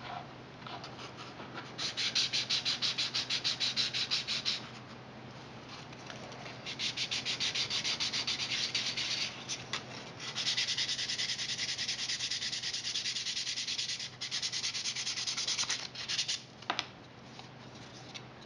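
Sandpaper rubbed back and forth by hand over a 3D-printed plastic chassis part coated with iron paint, sanding down the iron coat. It makes quick, even scraping strokes, about six a second, in three spells with short pauses between them.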